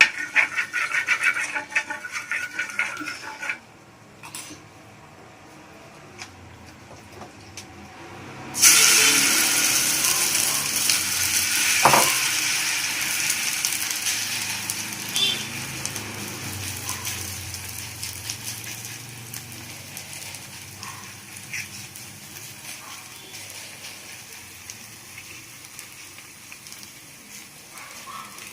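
Rava adai dough laid onto an oiled hot pan, setting off a sudden loud sizzle that slowly dies down as it fries, with one sharp click on the pan soon after. Before that comes a few seconds of rapid sharp noises.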